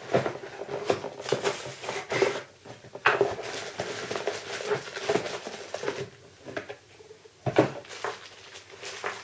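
A camcorder box being unpacked by hand: packaging rustles, with irregular light clicks and knocks of small plastic parts and a couple of sharper knocks.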